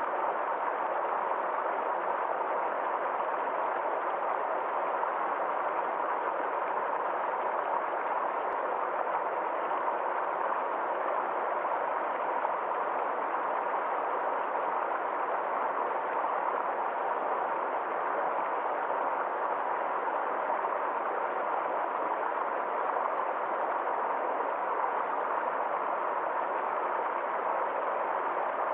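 Small forest stream flowing steadily, an even, unbroken rush of running water.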